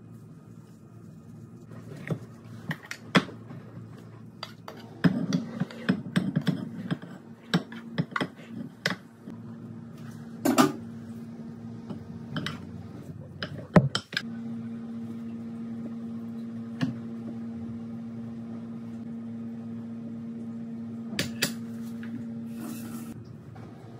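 A wooden spoon knocks, clinks and scrapes against a glass baking dish and a cooking pot as ground meat is spooned out and spread. Partway through, a steady low appliance hum starts and runs on, then stops shortly before the end.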